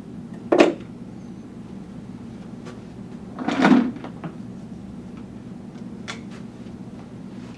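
Hard plastic doll-chair parts being handled: a sharp knock about half a second in as a part is set on the table, then a louder rattle of parts being rummaged in a plastic bucket about three and a half seconds in, and a few light clicks near the end.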